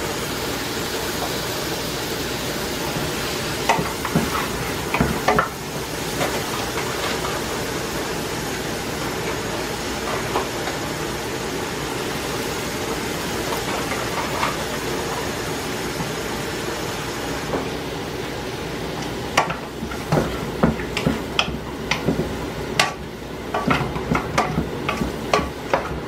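Onions, green bell pepper and garlic sizzling in butter in a frying pan, with a spoon knocking and scraping against the pan: a few knocks about four to five seconds in, and quick repeated stirring over the last several seconds.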